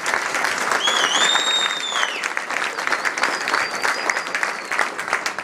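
Crowd applauding, with a loud whistle from the audience about a second in and a fainter one past the middle.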